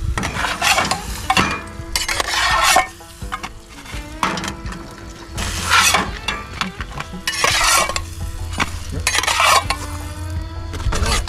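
Grilled cheese frying in a small pan on a camp stove, with about seven short scraping strokes of a metal utensil in the pan.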